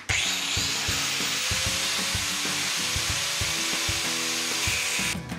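A 4-inch angle grinder with a thin cutting disc spins up with a rising whine and cuts steadily into the steel shell of a catalytic converter, stopping about five seconds in. Background music plays underneath.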